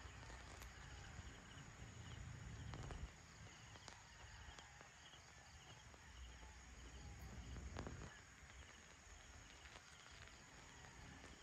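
Faint night ambience: insects chirping in short trills that repeat at an even pace, with a low rumble in the first few seconds.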